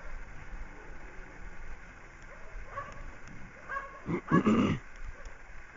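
A dog barking: a few short, fainter barks, then a louder double bark a little past the middle.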